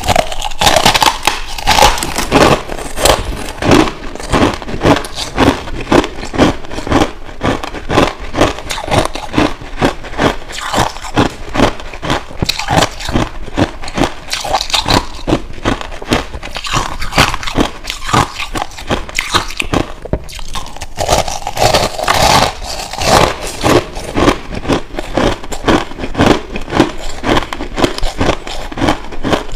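Finely crushed ice being bitten and chewed close to a clip-on microphone: a steady, dense run of sharp crunches and crackles.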